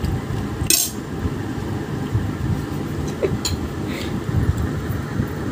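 A spoon scraping and clinking against a plate of biryani a few times, over a steady low rumble.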